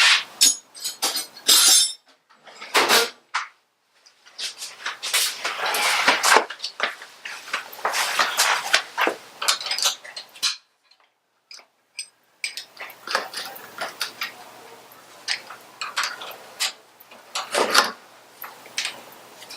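Wrenches and other metal hand tools clinking and clanking in short, irregular strikes and rattles, with a few brief pauses, as a brake line fitting is worked loose with a 7/16 wrench.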